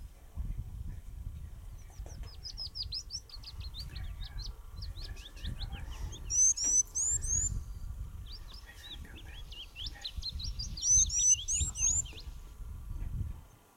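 Small birds calling in quick runs of short, high chirps, with two louder bursts of song about halfway through and again near the end, over a steady low rumble.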